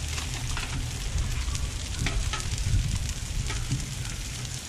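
Panko-breaded pork chops sizzling on a Blackstone flat-top griddle: a steady frying hiss with crackling pops and a few sharper clicks, over a low steady rumble.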